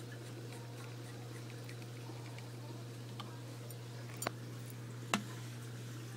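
A steady low hum with a few light ticks and three sharp clicks in the second half, the last one the loudest.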